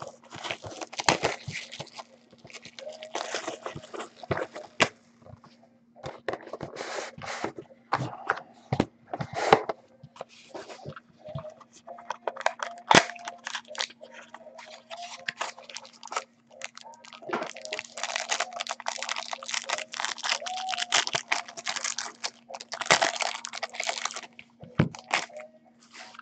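Foil wrappers of Topps Platinum football card packs being torn open and crinkled, in stretches of rustling, with many sharp clicks and taps as packs, boxes and cards are handled. A faint steady hum runs underneath.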